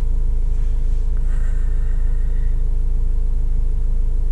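Vauxhall Vivaro's 2.5-litre diesel engine idling steadily, a low even rumble heard from inside the cab.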